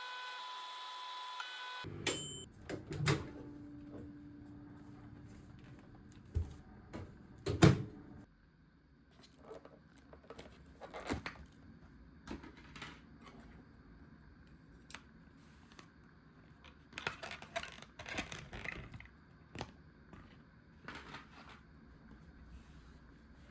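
A steady electronic hum stops about two seconds in. Clicks follow, like a microwave door opening, then two louder knocks and soft handling and rustling of a food container.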